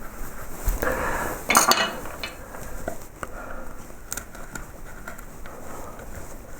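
Small hand carving gouges cutting into wood in short scraping strokes, with light clicks of the steel tools. The loudest cut comes about a second and a half in.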